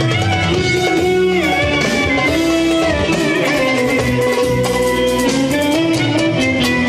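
Live Turkish Romani dance music: a clarinet plays a melody that slides and bends between held notes, over band accompaniment.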